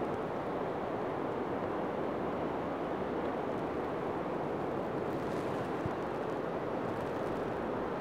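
Light rain falling over a forested mountain valley: a steady, even rushing hiss with no distinct events.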